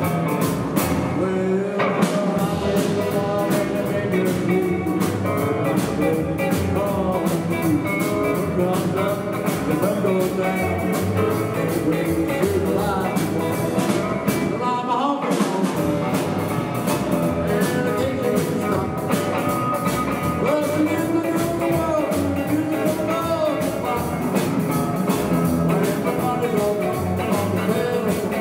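Live rockabilly band playing: acoustic and electric guitars, upright double bass and drums, with a man singing. There is a short break in the rhythm about halfway through.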